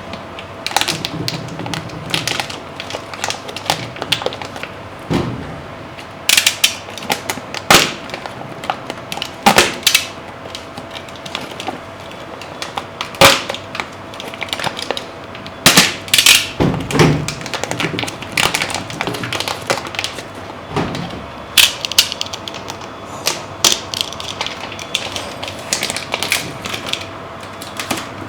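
Packaging being handled and cut open while unboxing a 3D printer: irregular knocks, clicks and scraping, with a faint steady hum underneath.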